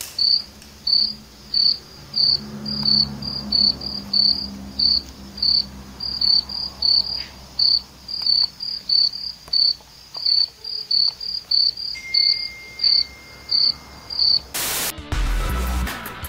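Cricket chirping: a long, even run of short, high chirps, about two to three a second. Near the end a loud burst cuts the chirping off and electronic music begins.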